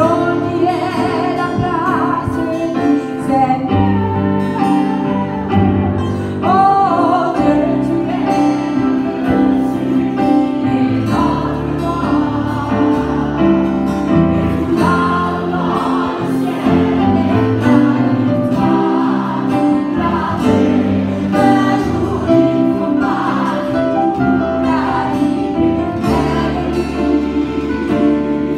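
A woman singing a gospel-style worship song into a microphone, amplified in a hall, backed by guitar and a choir.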